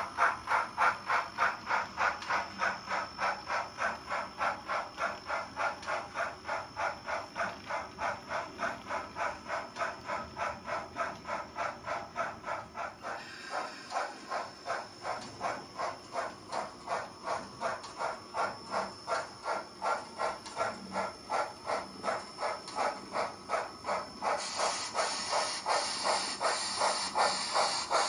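Sound-equipped HOn3 model Colorado & Southern Mogul steam locomotive chuffing in a steady rhythm, about two and a half chuffs a second. The chuffs grow louder and hissier about three-quarters of the way through as the engine approaches.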